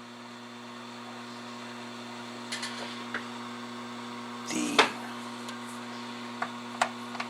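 Steady mains hum from the powered-up old Atlas AM CB radio, broken by several sharp clicks.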